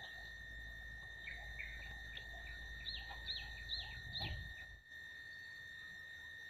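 Birds chirping in a run of short high calls, the clearest four evenly spaced about half a second apart near the middle, over a steady high-pitched drone. A low rumble underneath cuts off suddenly about two-thirds of the way through.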